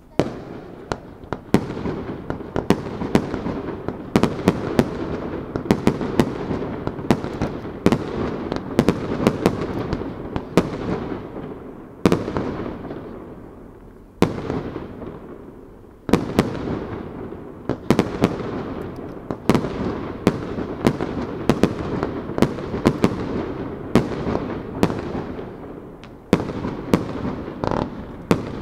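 Aerial firework shells bursting in quick succession: sharp bangs, each trailing a long echoing rumble. The barrage thins out briefly about halfway through and again near the end, then picks up with fresh loud bursts.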